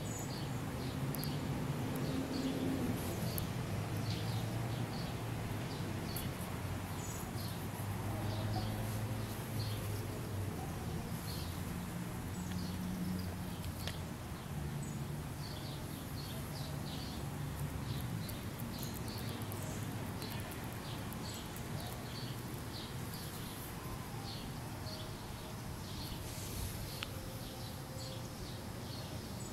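Outdoor ambience of small birds chirping, short high chirps coming in irregular clusters throughout, over a low steady hum.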